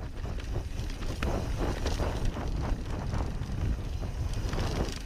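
Mountain bike riding fast down dry dirt singletrack: a steady rumble of wind on the microphone and tyres on the trail, with frequent short rattles and knocks as the bike goes over bumps.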